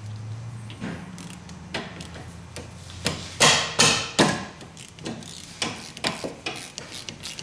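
Sharp metallic clicks and knocks of hand tools on a rear disc-brake caliper as its bolts are cracked loose and backed out, coming thickest from about three seconds in.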